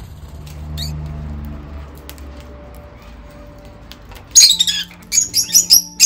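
Peach-faced lovebirds letting out a quick run of shrill chirps, the loudest sounds, in the last second and a half or so.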